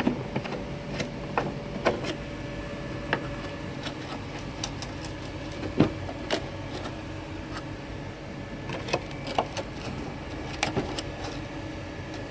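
Irregular clicks, knocks and scrapes of a small screwdriver working in the screw holes of a Milwaukee M18 wet/dry vacuum's plastic housing, with the case shifting on the bench; the sharpest knock comes about six seconds in. A steady hum runs underneath.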